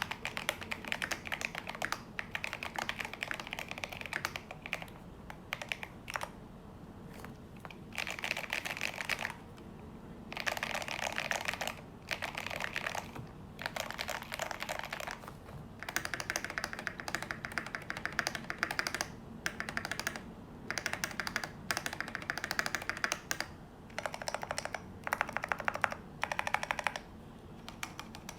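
Typing on a Drop CTRL mechanical keyboard with lubed Invyr Holy Panda tactile switches and Drop MT3 keycaps: thocky keystrokes come in bursts of rapid typing broken by short pauses.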